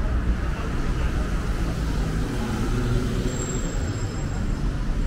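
Steady road traffic passing on a wet city street: a continuous rumble of engines and the rush of tyres on wet asphalt.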